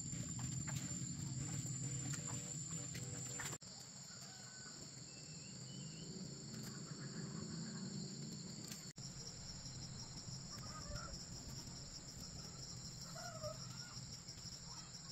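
Rural outdoor ambience: a steady high chirring of insects, with a few faint short bird calls. The background changes abruptly twice, about three and a half and nine seconds in.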